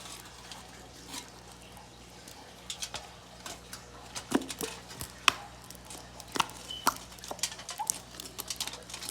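Knife cutting on a cutting board: irregular light taps and clicks, over a steady low electrical hum.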